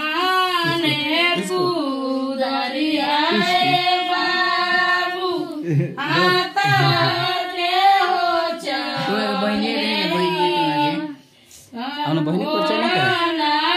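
High voices singing a song, with long held notes that slide in pitch and a brief pause about eleven seconds in.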